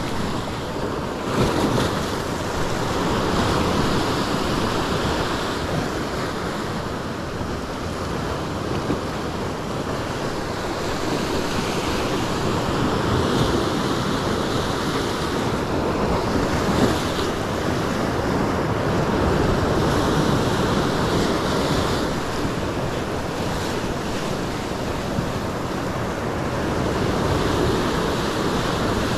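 Sea waves breaking on a rocky shoreline and washing back over the rocks, the surf noise swelling and easing in repeated surges.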